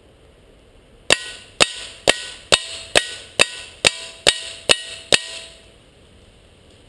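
Ten rapid suppressed shots from a GSG 1911 .22 pistol with a SilencerCo Sparrow suppressor, about two a second. Each shot is followed by the ringing of a steel target plate.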